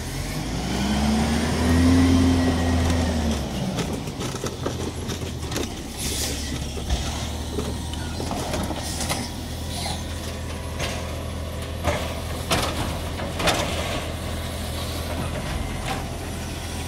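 Natural-gas automated side-loader garbage truck: its engine revs up and back down in the first few seconds as the hydraulic grabber arm works, then runs steadily. Scattered sharp knocks and clanks come from the arm and bins.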